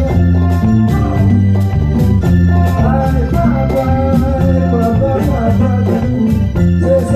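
Live band playing Latin music: organ-like keyboard chords and a bass line, with a steady run of percussion hits from conga and bongo sounds played with sticks on a Roland SPD-20 electronic percussion pad.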